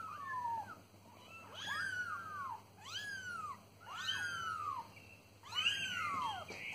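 Two-week-old kittens mewing: a run of high, thin calls, each rising then falling, about one a second, with more than one kitten calling at once at times.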